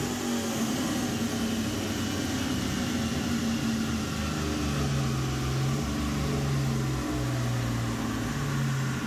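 Swapped 5.3 L Gen IV LS V8 in a 1981 Chevrolet Malibu idling on the dyno after a rev, its low pitch rising and dipping slightly, over a steady hiss of fan noise.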